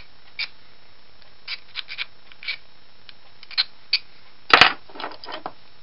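Scattered sharp clicks and taps of small metal window-hardware parts being handled and fitted by hand, the loudest a double click about four and a half seconds in.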